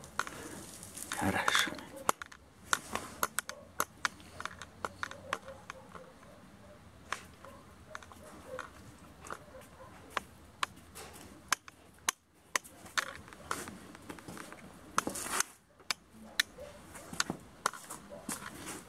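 German wirehaired pointer puppy tugging and mouthing a plush toy: scattered sharp clicks and taps with light rustling, and a brief louder rustle about fifteen seconds in.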